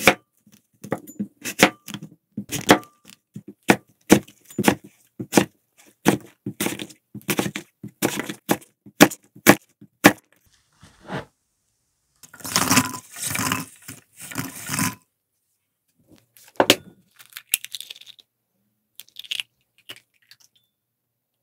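A large kitchen knife cutting and dicing an apple on an end-grain wooden cutting board: a run of sharp knocks as the blade strikes the board, about two or three a second, then a few seconds of denser clatter. Later there is a single sharp crack and a few lighter clicks as eggs are cracked into a ceramic bowl.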